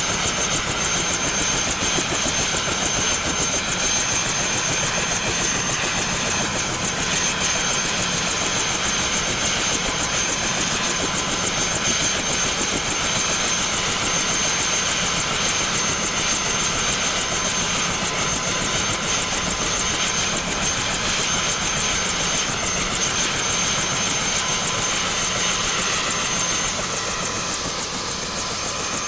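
Bell 212 helicopter idling, heard from outside: the twin turboshaft engines give a steady high whine over a fast, even pulsing from the turning rotor.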